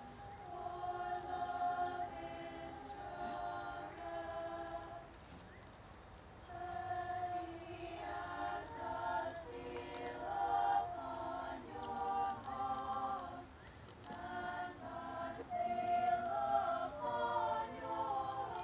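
Girls' choir singing held chords in several parts, phrase by phrase, with a short break about five and a half seconds in.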